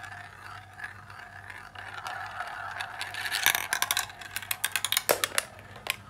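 Marbles rolling around a plastic funnel with a steady rolling whir. About halfway through they drop out and clatter down plastic track pieces in a quick run of sharp clicks.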